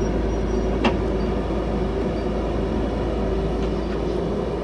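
CAT 312 excavator's diesel engine running steadily under work, with one sharp knock about a second in.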